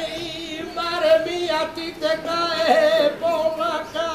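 A solo voice singing a saeta, the unaccompanied flamenco lament sung to a Holy Week paso, in long wavering melismatic phrases.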